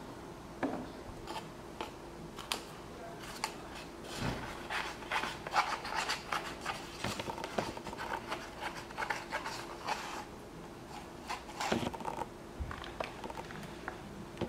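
Scratching, rubbing and light tapping as a foam cup is handled and tipped and wet garden soil is scraped out of it into a plastic cup. The scratches come thickest in the middle stretch, over a faint steady hum.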